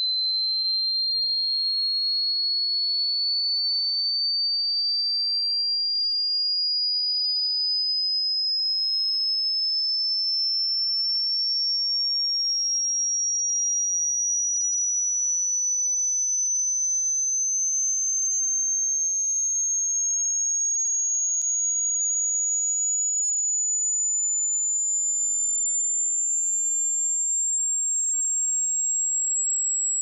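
A single high-pitched pure electronic tone that climbs slowly and steadily in pitch, rising about an octave, at an even loudness throughout: a synthesized sine-wave sweep made as a piercing, ear-grating sound effect.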